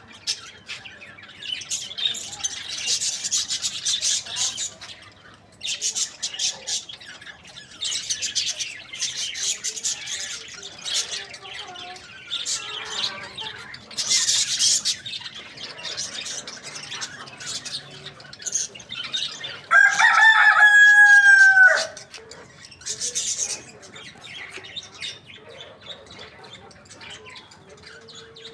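A rooster crows once, about twenty seconds in: one loud, drawn-out call of about two seconds that drops slightly at its end. Busy high chirping of small birds runs throughout.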